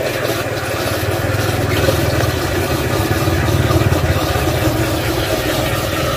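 A vehicle engine running steadily: a low rumble with a fast, even pulse.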